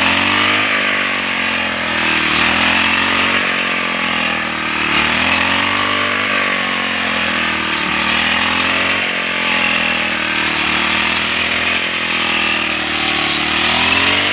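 Handheld reaper's small engine running, its speed rising and falling every couple of seconds as it works.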